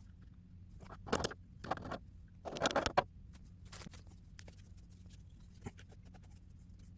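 Three short scraping noises within the first three seconds, with a few faint clicks and knocks scattered through the rest.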